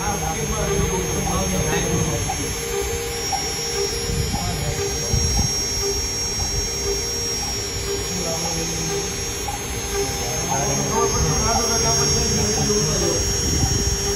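A CNC engraving router's spindle runs with a steady high whine and hum as its bit drills rows of dots into a white sheet for a hot-fix rhinestone die. A lower tone starts and stops again and again as the head moves from dot to dot.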